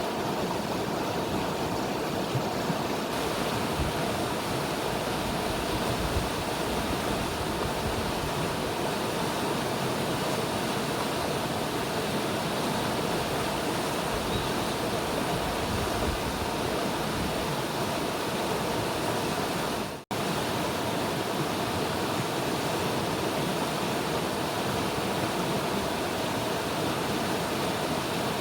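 River water rushing steadily, an even hiss like a stream or waterfall, with a sudden brief dropout about twenty seconds in.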